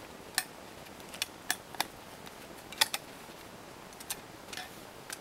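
Steel ratchet buckle of a rolled ratchet strap being handled: irregular sharp metal clicks and clinks, about nine in all, the loudest a close double click near the middle.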